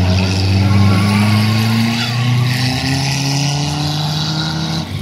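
Engines of the battered race cars running on the track, a loud steady drone in which one engine's pitch climbs slowly.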